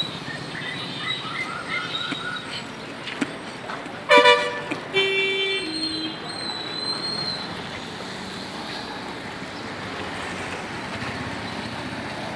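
Street traffic, with motorcycles running and a steady road hum. A vehicle horn sounds loudly about four seconds in, and a second horn follows about a second later in two falling notes.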